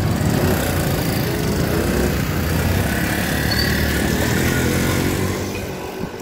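Street traffic with a motor engine running close by, a steady low hum that fades away near the end.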